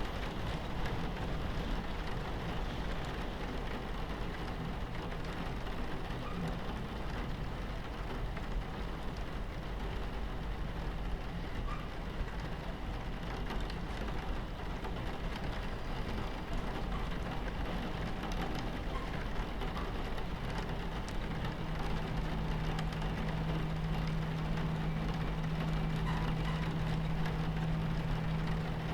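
Rain on a train window over the steady rumble of the train running on its tracks. A low steady hum comes in about two-thirds of the way through.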